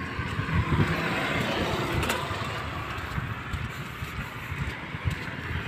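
Motor scooters and motorcycles passing on a steel-truss road bridge, a steady mix of small-engine and tyre noise that swells in the first couple of seconds, with one brief knock about two seconds in.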